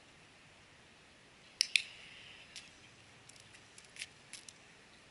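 Several sharp, light clicks with a faint metallic jingle; the loudest is a quick double click about a second and a half in, with scattered smaller ticks after it.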